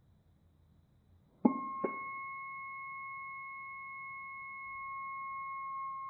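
The Morse key clicks down about one and a half seconds in, with a second click just after, and the kit's piezo transducer starts a steady, held buzzer tone. The tone is played back at a fifth of its speed, which lowers its very high pitch.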